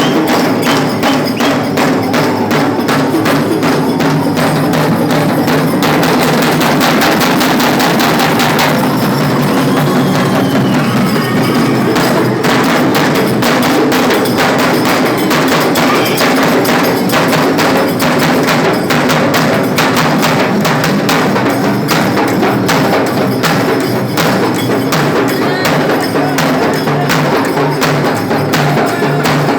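Loud, fast percussion music: sharp drum strokes in a rapid, steady beat that never lets up.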